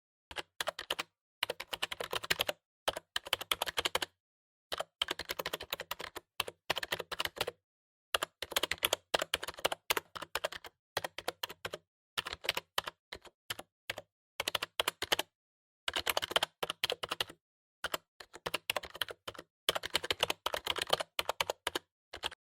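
Typing on a computer keyboard: fast runs of key clicks in bursts of a second or two, broken by short pauses, about a dozen bursts in all.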